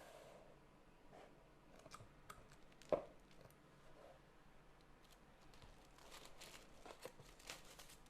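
Faint handling of keyboard packaging during unboxing: scattered soft rustles and light taps, with one sharper knock about three seconds in.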